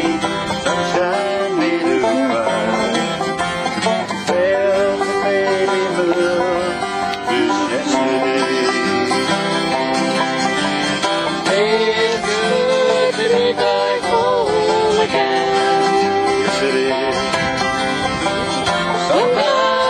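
Acoustic guitar strummed in a folk song, with a man singing along in a wavering melody.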